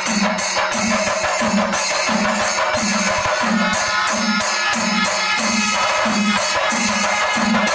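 Panchari melam: a massed ensemble of chenda drums beaten with sticks in dense, continuous strokes, over bright clashing of brass hand cymbals (ilathalam). A deep drum beat pulses steadily at just under two a second.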